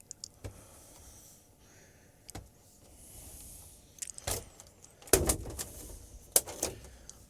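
Plastic clips on a flat-screen TV's back cover clicking and snapping loose as the panel is prised off: a few small clicks, then louder cracks and rattles about five seconds in and again near the end.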